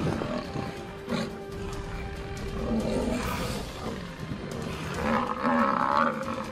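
Lions growling at Cape buffalo over background music.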